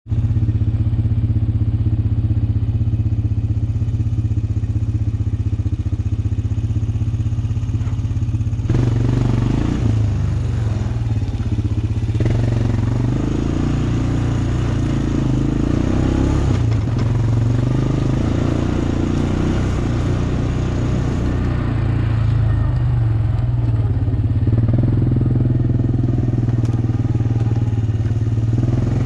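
2004 Honda Recon ES 250 ATV's single-cylinder four-stroke engine running steadily as the quad is ridden along a trail. The sound gets louder and rougher about nine seconds in, and again a little after twenty seconds.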